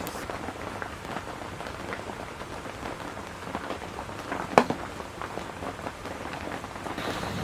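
Heavy rain pattering steadily as a dense crackle of small drops, with one sharp, louder tap about halfway through.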